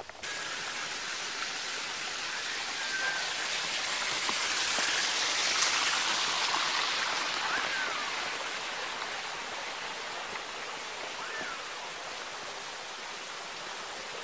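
Steady rush of running water, growing louder over the first few seconds and then slowly fading, with a few faint short chirps over it.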